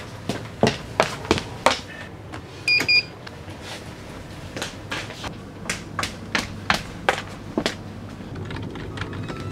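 Footsteps of hard-soled dress shoes on a hard floor, about two to three steps a second, pausing for a moment near the middle. A short double electronic beep sounds about three seconds in.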